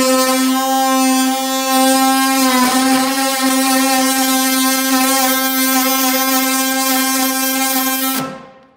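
Cordless DeWalt oscillating multi-tool running at one steady pitch, its blade cutting into a seized screw in a steel hardtop, with a brief falter about a third of the way in; the motor cuts off near the end. The blade is one meant for wood with nails, and it is not really cutting the metal.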